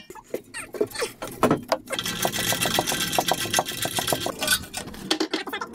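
A ratchet clicking as a nut is tightened under the car: an even run of about six clicks a second for roughly two seconds in the middle, after a few clinks and knocks of metal at the start.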